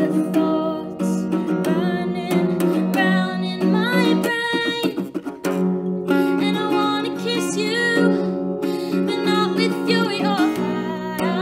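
A woman singing while strumming a steel-string acoustic guitar, with a steady low note ringing under the strums. About four seconds in the strumming thins briefly while the voice glides, then the full strumming comes back.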